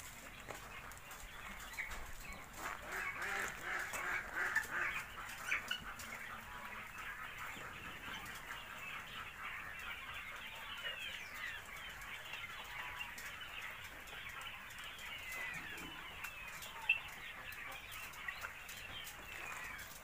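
A flock of caged quails and quail chicks cheeping and chirping, a dense chorus of short high calls, loudest in the first six seconds. Light clicks are scattered through it, with one sharper click near the end.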